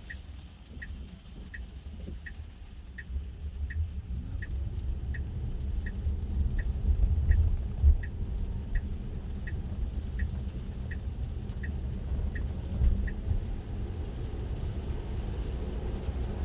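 Tesla Model 3 turn-signal indicator ticking evenly, about one and a half ticks a second, then stopping near the end, while the car signals a lane change under Full Self-Driving beta. Under it there is a steady low road rumble from tyres on a wet road, heard inside the cabin.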